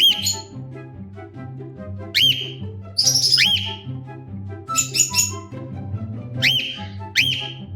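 Male cockatiel giving sharp, loud chirping calls, each a quick up-and-down whistle, repeated about seven times a second or two apart. Background music plays underneath.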